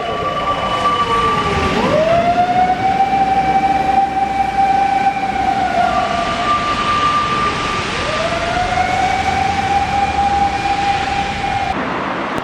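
Fire engine siren wailing: a long held tone that sags and climbs back up twice, with a higher tone briefly over it before each dip. Truck engine noise runs underneath.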